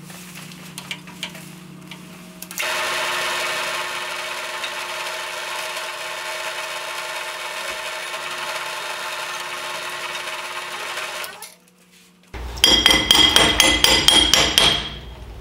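Drill press running, with its bit cutting a hole through a steel plate held in a vise: a low hum, then from about two and a half seconds a louder steady cutting sound until the motor winds down about eleven seconds in. Near the end, a loud, fast metallic clatter lasts about two seconds.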